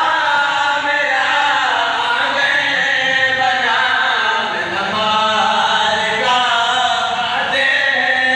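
A man chanting a melodic recitation into a microphone, in long held notes that bend up and down without a break.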